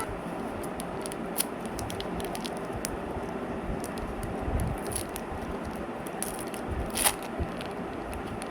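Wrapper crinkling and rustling, with scattered small clicks and a sharper crackle about seven seconds in.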